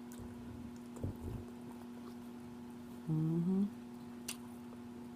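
Steady low electrical hum in a small room, with a few soft low knocks about a second in. About three seconds in comes a short closed-mouth 'mm' from a woman, rising in pitch, and a single sharp click follows shortly after.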